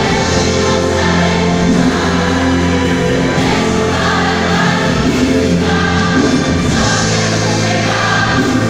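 Large church choir singing a gospel song over held low bass notes that change every second or few.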